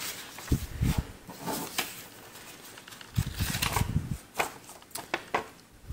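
Old paper documents being handled: sheets crinkling and rustling in irregular short strokes as a folded newsletter is turned and a paper certificate picked up.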